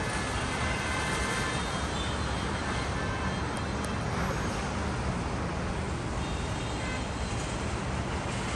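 Steady outdoor background noise, a continuous low rumble like road traffic, with no distinct events standing out.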